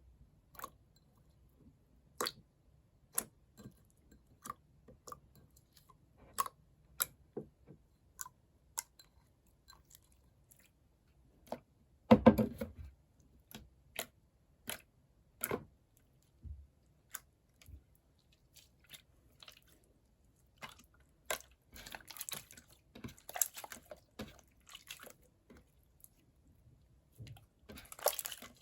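Slime being pressed and squeezed by hand: scattered sticky clicks and squelches, with a louder squelch about twelve seconds in and denser crackling toward the end.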